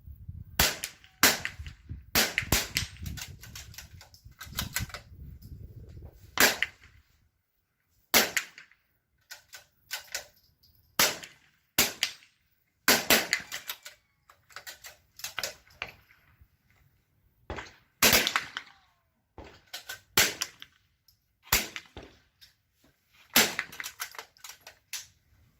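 .22 LR rifle shots fired one after another at irregular intervals of about a second or two, some sharp reports coming in quick clusters.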